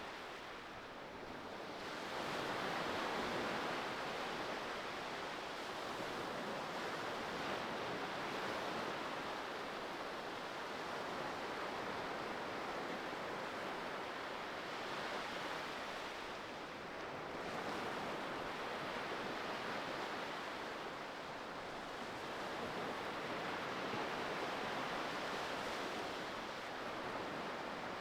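Ocean surf: a steady wash of breaking waves that slowly swells and eases, with dips in loudness about a second in and again a little past the middle.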